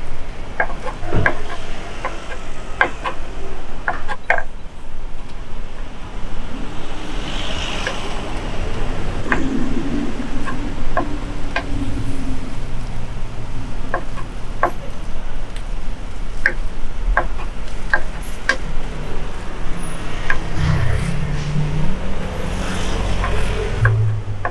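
Road traffic running past a street-side food truck, a steady low rumble that swells near the end as a vehicle passes. Over it come many short, sharp clicks and taps of utensils.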